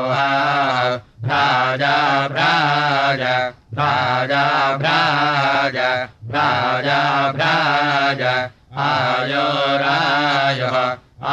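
A single voice chanting Sama Veda gana (Kauthuma recension), a sung Vedic chant with a gliding, wavering melody. It comes in phrases of about two and a half seconds, with short breath pauses between them.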